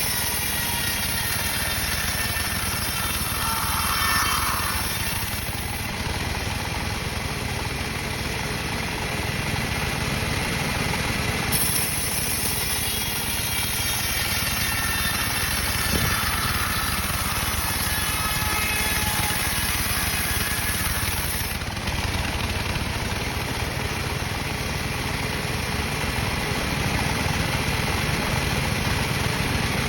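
Sawmill machine saw running steadily, its engine a constant drone. A high hiss comes in for about the first six seconds and again from about 12 to 21 seconds.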